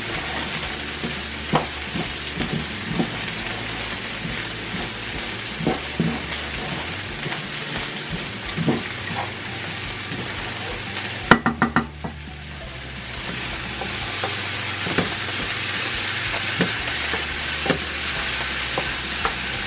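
Pre-cooked rice sizzling as it is toasted golden in a pan, stirred with a wooden spoon that scrapes and knocks against the pan now and then. Diced vegetables frying in a second pan add to the sizzle. About eleven seconds in there is a quick cluster of knocks, the sizzle dips briefly, and then it builds back.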